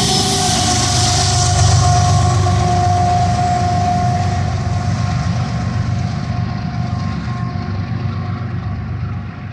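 Diesel locomotive pushing at the rear of a loaded coal train, running past close by. Its engine gives a heavy low rumble under a steady high tone. The sound slowly fades over the last few seconds as it moves away.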